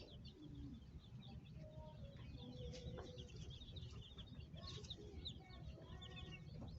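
A brood of Golden Comet baby chicks peeping, many short high falling chirps overlapping without pause, faint over a low steady hum.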